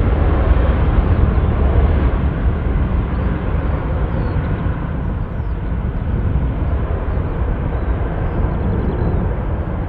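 Boeing 777 jet engines at takeoff thrust during the takeoff roll: a deep, steady rumble that slowly fades as the airliner moves away down the runway.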